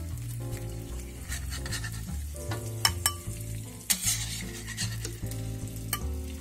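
Metal spatula scraping and clicking against a wok and a bowl as cooked egg whites are scooped out, with light sizzling of hot oil in the wok. Soft background music plays under it.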